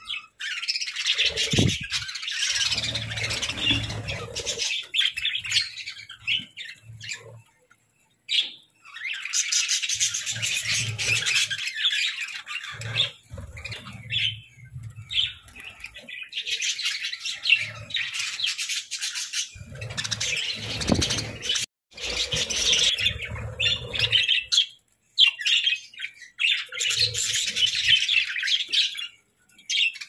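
A flock of budgerigars chattering and chirping together in bursts, broken by a few sudden short gaps.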